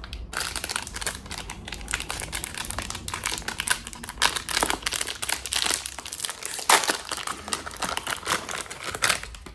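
Packaging crinkling and crackling as it is handled, in dense irregular rustles throughout, with a sharper crackle about seven seconds in.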